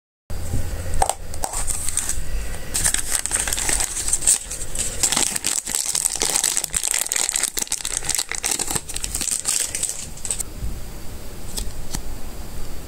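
Thin clear plastic bag crinkling and crackling as hands unwrap small capsule-toy train parts, densest from about three to ten seconds in, with a few sharp plastic clicks around it.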